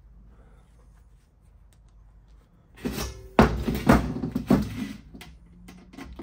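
Hand tools and the thin stainless steel cylinder being handled on a steel workbench: after a quiet start, a few loud knocks and clatter from about three seconds in.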